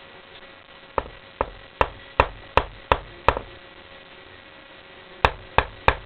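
Knocking on a hard surface: a quick run of seven knocks, about two and a half a second, then a pause and three more knocks near the end.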